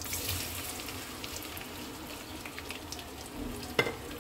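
Sliced onions dropped into hot vegetable oil set off a steady sizzle with scattered crackles. A sharp knock near the end.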